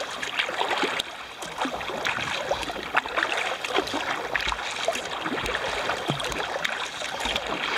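Choppy lake water slapping and gurgling against the hull of a kayak (a Wilderness Systems Aspire 105) as it is paddled through waves, in irregular small splashes.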